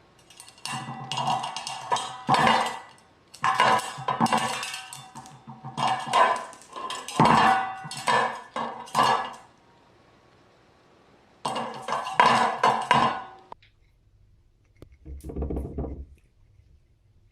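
Rapid clinking and knocking of hard objects, in several bursts.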